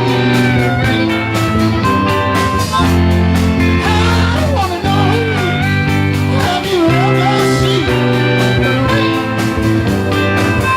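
Live band playing a rock song, with electric bass, guitar and a singing voice.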